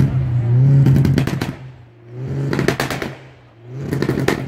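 A car engine running and being revved, its exhaust crackling and popping in three quick rattling bursts as the revs drop, with the engine idling in between.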